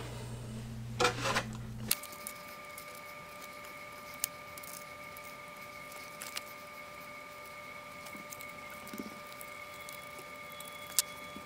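Quiet workbench background: a faint, steady high-pitched whine, with a few light clicks and taps as small airframe parts and hinges are handled on the bench.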